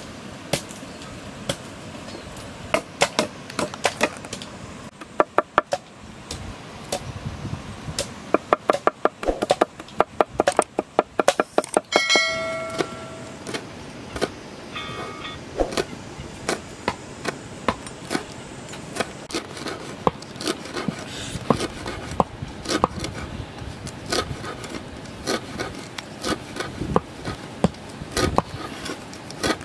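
Large knife chopping red chillies and garlic on a wooden cutting board: runs of quick knocks, fastest in two spells early on and a few seconds later, then slower, scattered strokes. Two short pitched tones sound near the middle.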